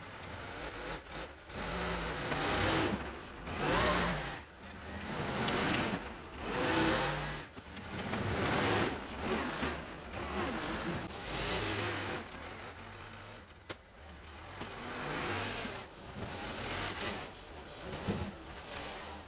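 Case 580CK backhoe's 188D four-cylinder diesel engine running, its sound swelling and falling every second or two as the throttle and load change while it works.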